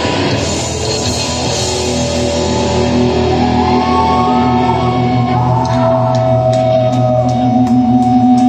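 Black metal band playing live, heard loud from the crowd: distorted electric guitars and drums. From about three seconds in, held guitar notes ring and bend in pitch, and in the last few seconds short sharp hits repeat about twice a second.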